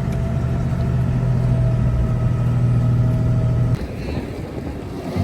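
An engine running steadily at an even speed, cutting off suddenly a little under four seconds in.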